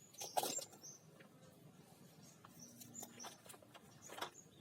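Faint scattered clicks and rustles, with a few short high-pitched chirps.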